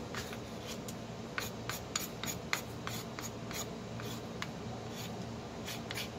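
A small metal spoon scraping thick, sticky corn-and-coconut pudding off a wooden spoon into a plastic tub: a run of light, irregular clicks and scrapes, over a steady low hum.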